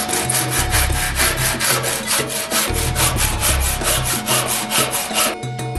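Hand saw cutting through the protruding end of a pallet-wood slat with rapid back-and-forth strokes, which stop just before the end.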